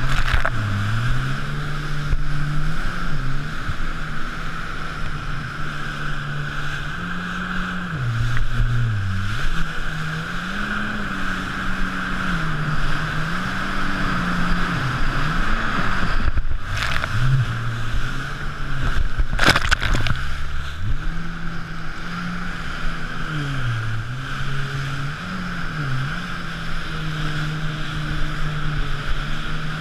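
Sea-Doo RXP-X 260 jet ski's supercharged Rotax 1503 three-cylinder engine running at speed, its pitch rising and falling with the throttle, over a steady rush of water spray and wind. Two short loud hits of noise break through about halfway.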